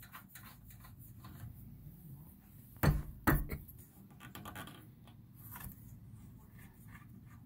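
Faint handling sounds of hands working M10 bolts into a spin bike's steel front stabilizer bar, with two sharp knocks about half a second apart near the middle.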